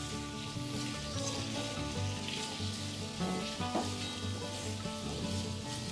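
Spice-coated baby potatoes sizzling in oil in a nonstick kadhai as a spatula stirs them, with soft background music throughout.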